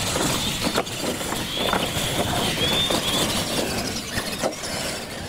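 Radio-controlled monster trucks accelerating side by side down a dirt drag strip. Their electric motors whine and their tyres churn the dirt, with scattered knocks and rattles.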